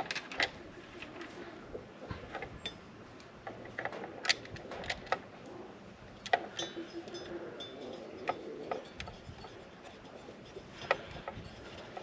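Scattered light clicks and knocks of deer feeder parts being handled and fitted together during assembly, irregular and a few seconds apart.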